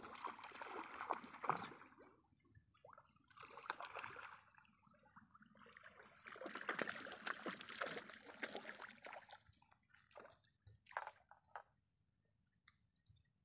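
A hooked fish thrashing and splashing at the water's surface while it is played on a fishing pole, in several bursts that die away near the end.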